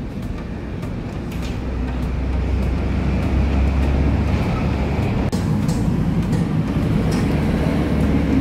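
Motor vehicle rumbling with a low hum, growing louder over the first few seconds and then holding steady.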